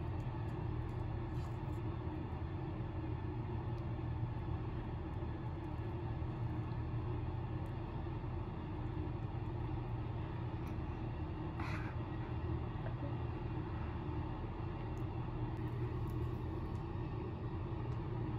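A steady low hum of background room noise, with a faint click about twelve seconds in.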